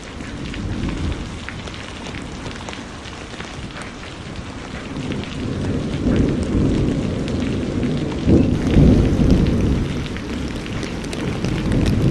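Steady rain falling, with scattered ticks of individual drops. A low rumble swells about halfway through and again, loudest, about two-thirds of the way in.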